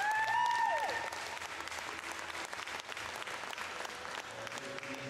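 Audience applauding, with a brief high-pitched call near the start.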